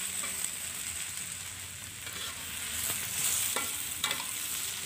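Pak choy stir-frying in a wok: a steady oily sizzle, with a few light clicks of the spatula against the pan as the vegetables are turned.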